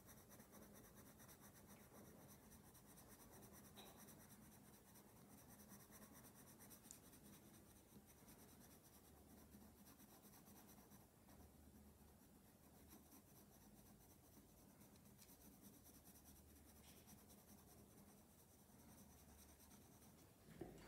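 Faint scratching of a Berol Fantasy 500 colored pencil shading on drawing paper in continuous short strokes, over a steady low hum.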